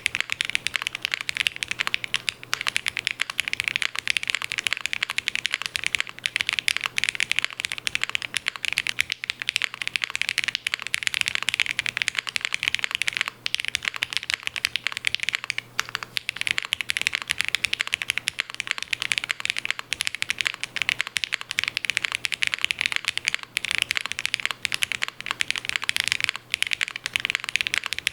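Fast, continuous typing on a custom mechanical keyboard with lubed and filmed Gateron Ink Black V2 linear switches in a POM plate with case foam, under GMK keycaps: a dense run of short keystroke clacks with a few brief pauses.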